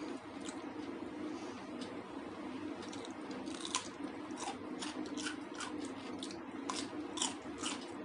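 Crunching bites into a raw cucumber slice, then crisp chewing. The sharp crunches start about halfway through and come several times a second, over a steady low hum.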